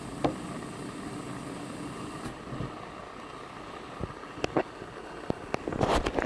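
Handling noise from a camera and microscope over a steady background hum: a few small clicks and knocks, then a short burst of rubbing and knocking near the end as the camera is moved away from the eyepiece.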